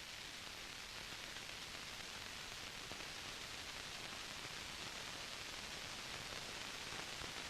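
Steady, even hiss of the recording's background noise, with no other sound.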